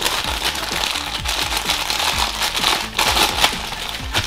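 Foil wrapper crinkling as hands handle and open it, with background music under it.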